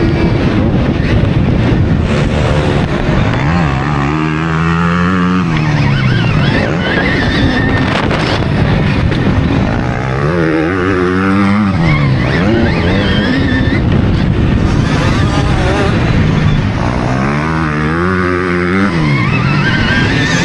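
Motocross bikes on a dirt track, heard from a rider on a Stark Varg electric motocross bike following another rider: motor pitch climbing and falling three times as the bikes accelerate and ease off, over constant wind and track noise.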